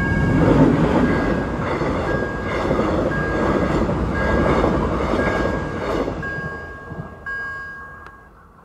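Mugunghwa-ho passenger train hauled by an electric locomotive passing close by at speed: loud wheel-on-rail rumble with a regular clatter from the carriages, fading away over the last few seconds as the train clears. The level crossing's electronic warning bell rings steadily throughout and stops just before the end.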